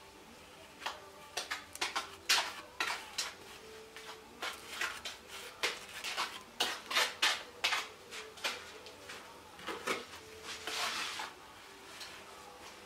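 Steel bricklaying trowel scraping and tapping mortar on a hand-held brick: a quick, uneven run of short scrapes and clinks, with one longer scrape near the end.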